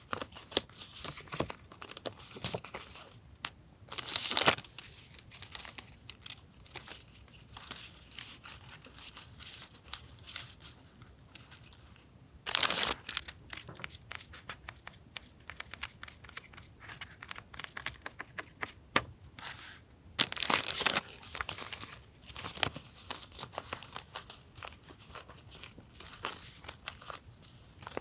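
Paper journaling supplies and their packaging being handled: irregular rustling and crinkling, with louder crinkly bursts about four, twelve and twenty seconds in.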